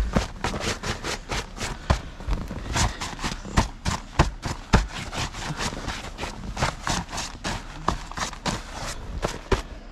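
Snow crunching and scraping in quick, irregular strokes, several a second.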